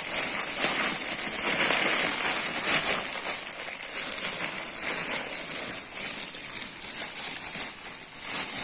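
Plastic packaging cover being torn open and handled, a dense, continuous crinkling crackle.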